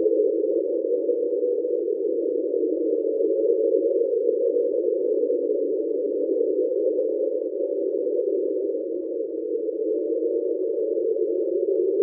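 The 'Train' underwater sound, a hydrophone recording from the equatorial Pacific played at its real speed: a steady, unbroken drone. NOAA believes it was likely caused by ice sheets in Antarctica.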